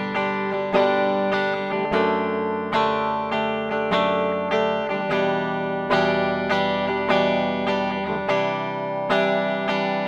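Ibanez GRGR121EX electric guitar on its bridge humbucker with a clean tone, playing picked chords whose notes ring together, moving to a new chord every few seconds.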